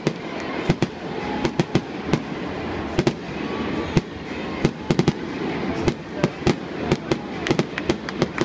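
Aerial fireworks bursting: a continuous run of sharp bangs at irregular intervals, several coming in quick clusters.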